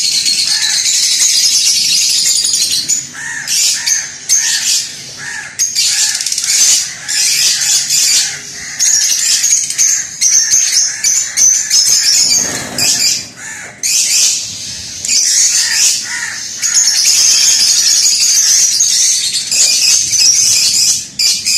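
Many caged lovebirds chattering together: a dense, continuous high-pitched chatter, with brief lulls in the middle.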